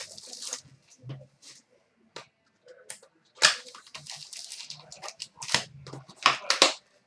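Trading card packs being torn open and their foil wrappers crinkled, with cards handled: irregular rustling and tearing with sharp crackles, loudest about three and a half seconds in and near the end.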